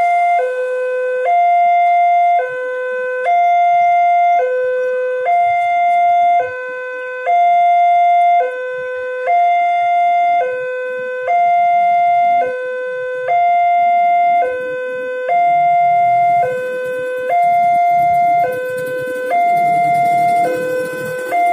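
Indonesian railway level-crossing warning alarm sounding a steady two-tone pattern, a higher note then a lower note, each about a second long and repeating without break: the signal that the barriers are down and a train is due. A low rumble joins in over the last few seconds.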